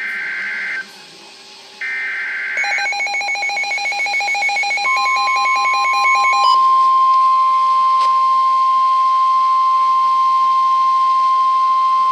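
NOAA Weather Radio alert tones: two short bursts of buzzy digital SAME header data, then rapid electronic beeping, then the steady 1050 Hz warning alarm tone starting about five seconds in and holding on. Together they announce a new warning broadcast.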